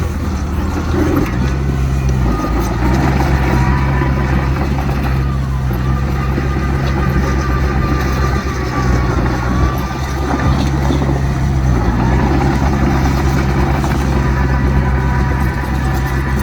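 Heavy diesel earthmoving machinery, a bulldozer and dump trucks, running steadily under load. The engine note shifts in pitch a few times, and a faint wavering high whine sits above it.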